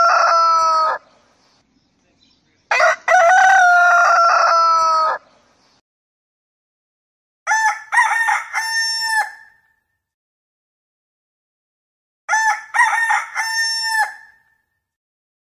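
Village rooster (ayam kampung) crowing at dawn: a crow ends about a second in, a long loud crow follows a few seconds in, then two shorter, choppier, quieter crows near the middle and near the end.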